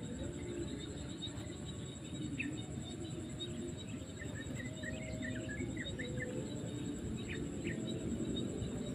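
Outdoor ambience: a steady high insect trill, with a few short bird chirps and a run of bird twitters about halfway through, over a low steady background noise.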